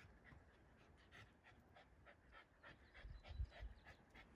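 Boston terrier panting faintly and quickly in a steady rhythm, with a low thump about three and a half seconds in.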